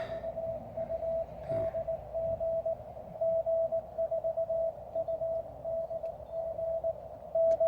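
Morse code (CW) from a Weber MTR transceiver on 20 m: a single steady pitch keyed on and off in dots and dashes, as a callsign exchange with G4UDG is under way.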